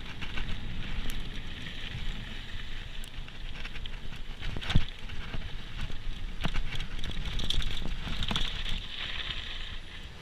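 Downhill mountain bike rolling over a rough dirt trail: a continuous crunching and rattling of tyres and bike, with frequent clattering knocks over bumps, the loudest about five and six and a half seconds in.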